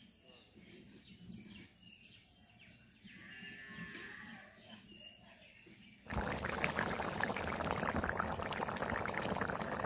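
Quiet rural outdoor ambience with faint animal calls. About six seconds in, it switches abruptly to a loud, dense crackling hiss.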